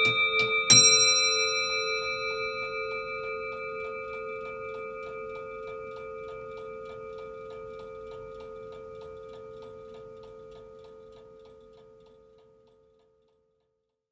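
A brass clock's bell is struck once just under a second in, the end of the clock striking, and its ring dies away slowly over about ten seconds. Steady ticking of the clock movement runs beneath the fading ring until the sound cuts off near the end.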